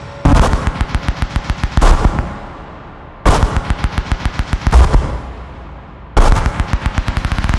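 Experimental electronic music: a fast, rattling roll of sharp clicks starts suddenly and dies away. The pattern repeats about every three seconds, three times.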